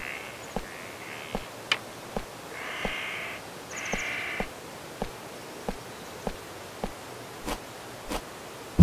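Footsteps walking at a steady pace, a step about every half second or so. A bird caws harshly twice, about three and four seconds in.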